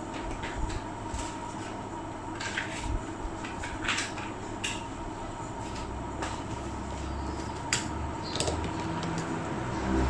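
Scattered light clicks and taps over a steady background hum.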